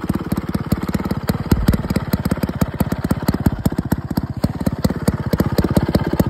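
Festo two-man chainsaw's two-stroke engine running at a fast, even putter, with a brief louder surge about one and a half seconds in, on its first run after sitting unused for many years.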